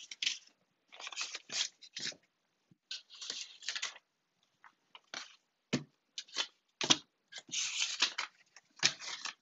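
Paper sticky notes being slid, shuffled and set down on a tabletop by hand: a string of short, irregular paper swishes and scrapes with a few light taps.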